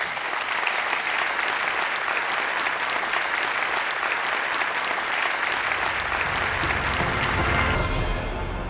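A large auditorium audience applauding, a dense, steady clapping that fades near the end as low music comes in.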